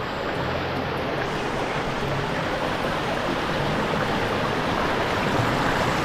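A river stream rushing steadily.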